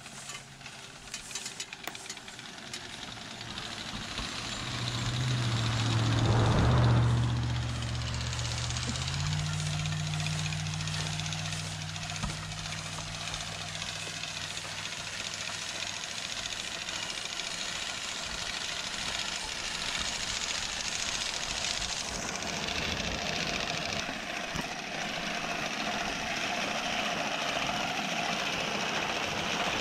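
A motor vehicle's engine passes by, loudest about seven seconds in, its pitch dropping as it goes past, and a steady engine drone runs on afterwards. From about two-thirds of the way through, the rapid clatter of a horse-drawn sickle-bar hay mower's cutter bar grows louder as the team comes close.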